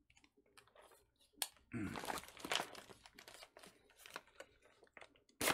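Thick plastic MRE pouch being worked open by hand: a few scattered crackles at first, then from about two seconds in a run of crinkling and tearing plastic.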